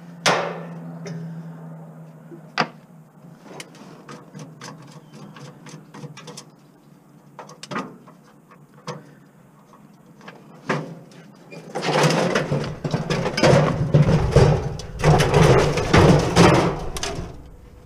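Scattered light knocks and clicks as scrap is handled around a stainless steel gas grill, then about five seconds of loud, rough scraping and rumbling from about twelve seconds in as the grill is shifted over onto its side.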